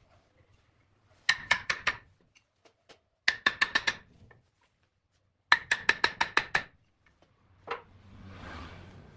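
A steel turning tool rattling and clicking against the wooden tenon at the neck of a turned vase, in three quick bursts of sharp, ringing clicks about eight a second. Near the end there is a single knock and a soft rub.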